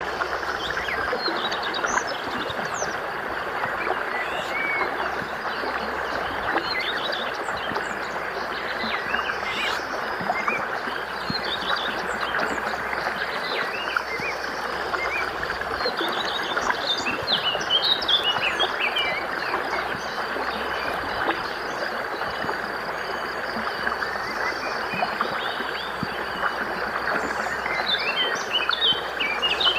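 Birds chirping, with many short calls scattered throughout and thickest near the middle and end, over a steady rushing background noise.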